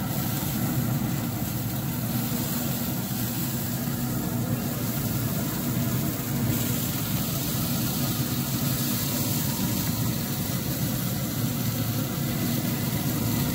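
Traeger pellet grill's fan running: a steady low hum with a hiss over it.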